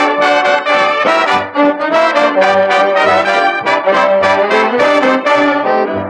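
Brass band music: trumpets and trombones playing a tune over a recurring bass line.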